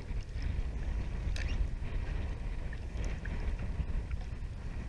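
Wind rumbling on the microphone over water moving around a small boat, with a few faint knocks.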